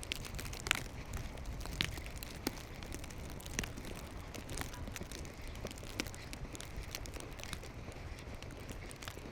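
Footsteps crunching on fresh snow, about one step a second, over a steady low rumble of wind on the microphone.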